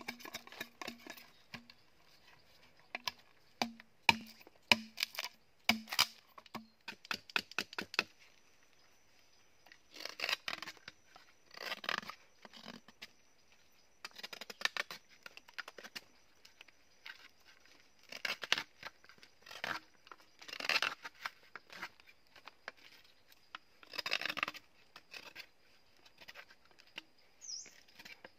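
A knife working green bamboo: quick sharp taps and cuts for the first several seconds, then longer scraping strokes of whittling, one every second or two. A faint steady high tone runs underneath from about a third of the way in.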